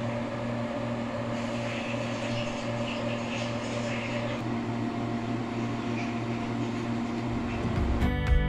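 Steady hum and whir of a running electric fan or motor, cutting in abruptly. Strummed acoustic guitar music comes in near the end.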